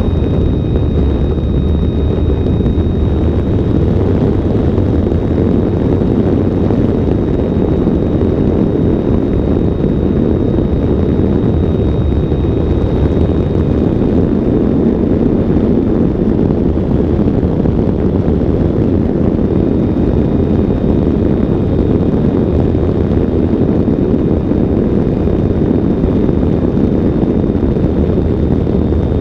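Steady, loud wind rush from the airflow over the wing-mounted camera of an electric ultralight in flight. Under it runs a faint, steady high whine, which fades for a few seconds midway and returns.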